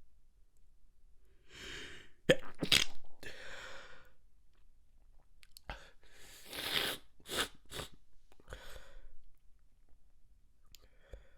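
Stifled sneezes, held back to keep them quiet. There are two bouts of short, sharp bursts, about two seconds in and around seven seconds in, with breathy in-breaths and exhales around them.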